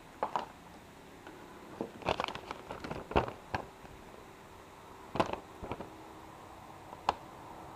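A paper instruction sheet rustling and crinkling as it is unfolded and handled. The rustles and crackles come in short irregular runs, busiest between about two and three and a half seconds in, with a few more near the end.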